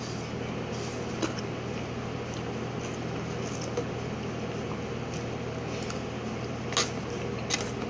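A person eating: quiet chewing, with a few short clicks of a plastic fork, the loudest near the end, over a steady low electrical hum.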